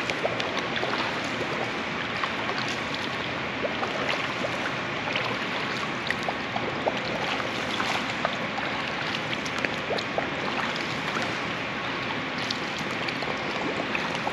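Pool water splashing and lapping as a swimmer standing in the water sweeps her arms through freestyle strokes and breathes out into the water, with many small splashes scattered over a steady wash.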